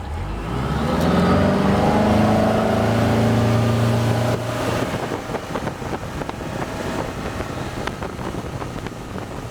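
Mercury 150 hp outboard throttling up to bring the boat onto plane, its pitch rising over the first second or so and then holding loud and steady. About four seconds in the engine tone falls back and a steady rush of wind and water takes over.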